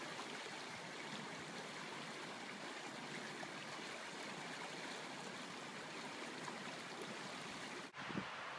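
Creek water flowing in a steady, even rush, cut off sharply near the end.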